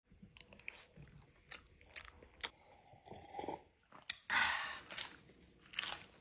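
Faint chewing and crunching of food, with a few small sharp clicks spread through the first half and short, louder rustly bursts in the second half.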